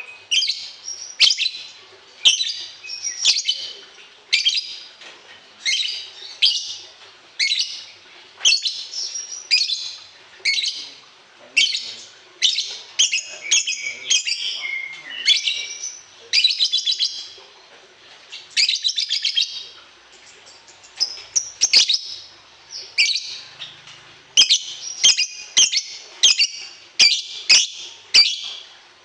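A songbird singing a long run of short, high, fast chirping phrases, each about half a second to a second long, one straight after another with brief gaps.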